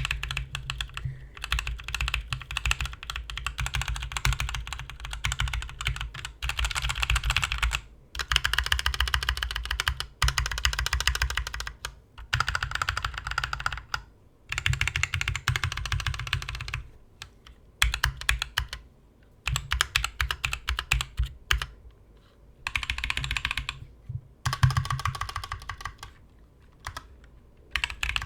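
Mechanical keyboard with C3 Equalz X TKC Kiwi tactile switches being typed on in fast runs of keystrokes, broken every few seconds by short pauses.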